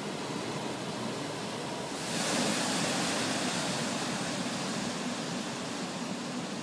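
Ocean surf rushing steadily, with a louder hiss of breaking water swelling up about two seconds in and slowly easing off.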